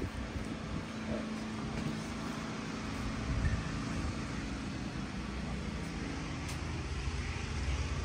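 Steady low rumble of distant road traffic, with a faint steady hum.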